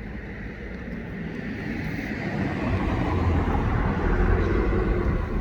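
A passing vehicle: a broad rushing noise with a deep rumble that swells steadily, is loudest a little past halfway, and then falls away.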